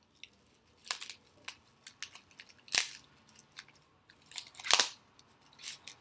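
Clicks, scrapes and crinkles of eating utensils and packaging as a small sweet potato pie is broken into pieces, with two louder sharp snaps, one about halfway through and one near the end.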